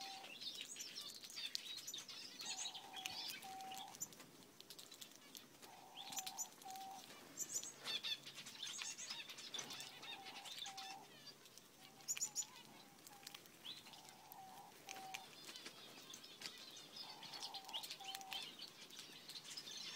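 Gouldian finches chirping and twittering as they flutter and peck at toasted eggshell held on a hand, with scattered sharp clicks. A low two-note call repeats in the background every few seconds.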